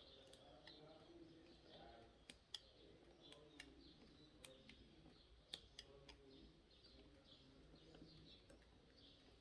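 Near silence: faint scattered clicks of fingers picking at the stubborn protective backing of double-sided tape, with faint bird chirps in the background.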